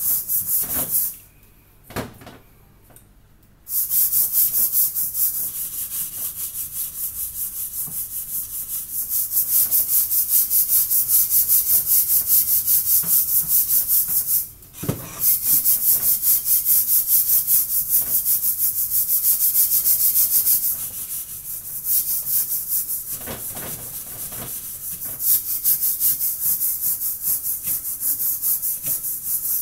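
The blackened outside of a metal cooking pan being scrubbed by hand with a cleaning paste, in quick, regular back-and-forth rasping strokes to scour off burnt-on black. The scrubbing stops for a few seconds near the start and briefly near the middle.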